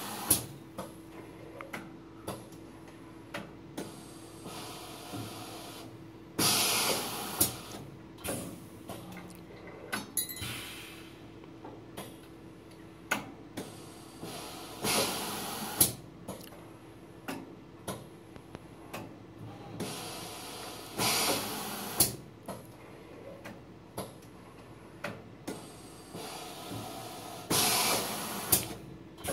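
KIS XENA-I single-stroke tablet press cycling: its pneumatic air cylinders hiss in bursts of about a second, four times, six to nine seconds apart. Between them come sharp mechanical clicks and knocks, over a steady hum.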